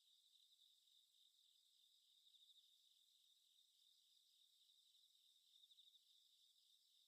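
Very faint crickets chirping in an even, rapid pulse: a night-time ambience.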